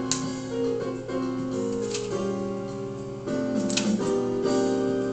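Background keyboard music: a melody of held, piano-like notes over chords, changing every half second or so.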